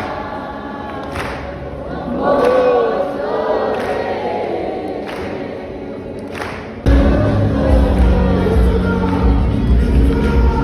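Gospel choir singing, with a few sharp hits spaced a second or so apart. About seven seconds in, a band with a heavy bass comes in and the music jumps louder.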